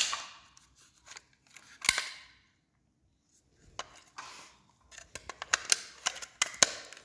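Handling noise from a smoke detector being picked up and handled: a string of sharp plastic clicks and knocks with short stretches of scraping and rustling. The alarm is not sounding.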